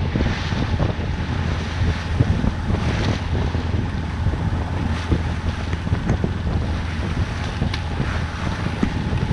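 Wind buffeting the microphone and water rushing past the hull of a small sailboat under way, over a steady low hum from its inboard diesel while motor-sailing, with a few short splashes or knocks.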